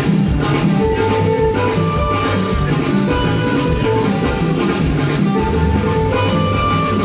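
Live band playing at a sound check: instrumental music with a steady beat.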